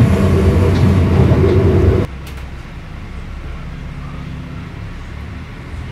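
Cabin running noise of an Alstom Coradia Lint 54 diesel multiple unit: a loud low rumble that cuts off abruptly about two seconds in, then a quieter, steady rumble of the train running.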